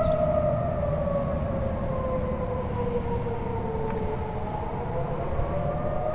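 EOWS-612 electronic tornado warning siren sounding a steady tone that sags slowly in pitch through the middle and climbs back near the end, over a low rumble.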